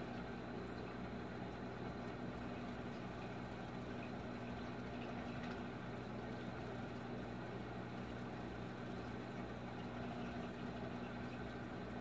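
Reef aquarium equipment running: a steady low electrical hum over an even rush of circulating water.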